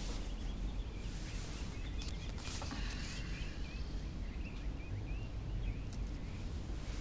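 Small birds chirping in quick short twitters over a steady low background rumble.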